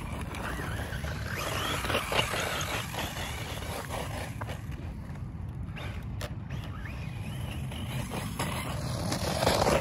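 Brushless motor of a 1/16-scale RC truck whining, with its tyres crunching on loose gravel and dirt. The sound fades as the truck drives off, then grows louder near the end as it comes back close.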